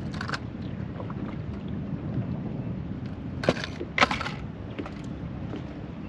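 Strong wind buffeting the microphone in a steady low rumble, with two sharp knocks about half a second apart a little past the middle.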